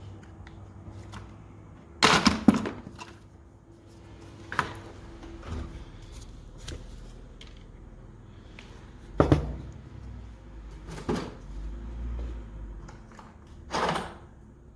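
Rummaging through a metal toolbox for a socket: drawers opening and closing and tools clanking, as several separate sharp knocks with the loudest about two seconds in.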